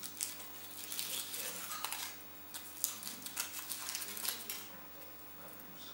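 Thin foil wrapper crinkling and crackling as it is peeled by hand off a chocolate surprise egg, in quick irregular crackles that ease off in the last second or so.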